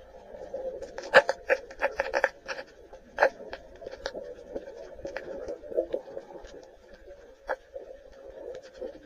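Muffled underwater sound picked up by a camera held below the surface over a coral reef: irregular sharp clicks and crackles over a steady dull hum.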